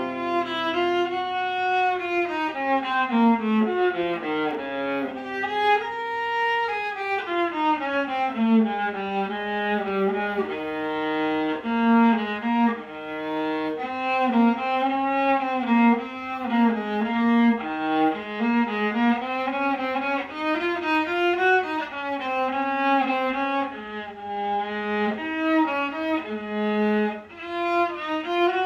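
A solo bowed string instrument of the violin family, played unaccompanied through an étude: a continuous line of notes climbing and falling, some quick and some held.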